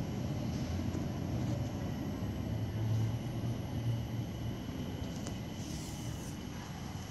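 Steady low rumble of vehicles and machinery around an airport, swelling a little midway, with a brief high hiss near the end.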